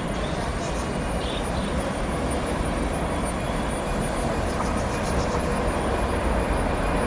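Passenger train hauled by an electric locomotive approaching: a steady low rumble of wheels on rail that grows slowly louder as it nears.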